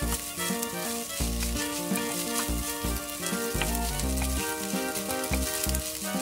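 Rice and chopped green onion sizzling in oil in a nonstick frying pan while a wooden spatula stirs and scrapes through it, with small ticks from the scraping. Background music with a bass line plays over it.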